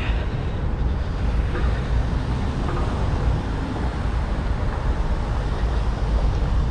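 Steady low outdoor rumble of traffic, with wind buffeting the microphone.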